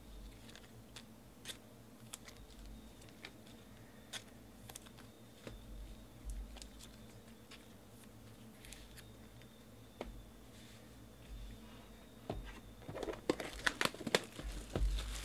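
Trading cards being handled, with scattered soft clicks and slides. Near the end comes a louder run of crackling as the plastic shrink-wrap is torn off a box of cards.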